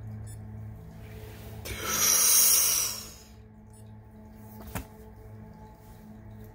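One long, forceful human breath close to the microphone during Wim Hof-style breathing. It swells in about a second in, lasts around two seconds, then fades. A short tick follows a couple of seconds later.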